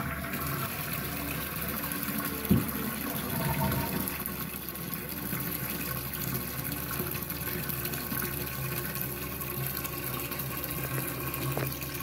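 Rainwater pumped through a half-inch copper pipe running steadily into a toilet tank as it refills after a flush, with one brief knock about two and a half seconds in.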